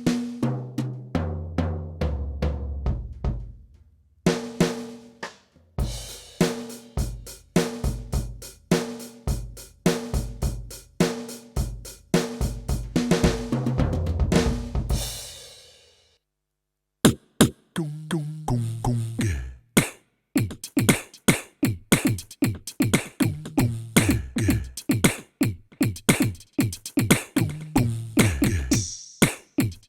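Yamaha DTX720K electronic drum kit, its DTX700 module's kit sounds played as a groove with tom fills. This pattern ends with a cymbal ringing out about halfway through. After a second's pause, another groove starts with a different kit sound.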